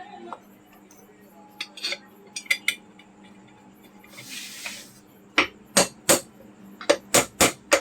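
Light metal clinks, a short scrape about four seconds in, then a quick run of sharp knocks as the upper half of a ceiling fan's metal body is fitted and tapped into place.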